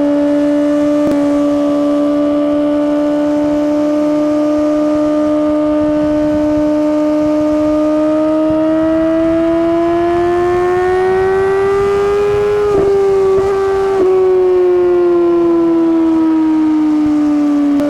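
Suzuki GSX-R1000R inline-four running through an Akrapovic slip-on exhaust under way. It holds a steady, high-revving note, climbs in pitch as it accelerates, breaks briefly twice about thirteen and fourteen seconds in, then falls steadily in pitch as the bike slows.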